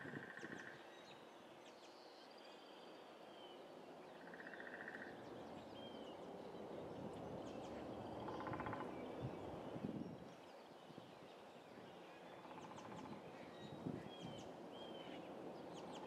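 Faint outdoor nature ambience: scattered short bird chirps and a few short rapid trills over a low hiss.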